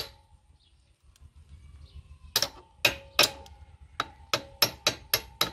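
Hammer knocking on a motorcycle's rear axle end at the swingarm's chain adjuster, metal on metal with a short ring after each blow. One knock, a pause of about two seconds, then a quick run of about nine knocks.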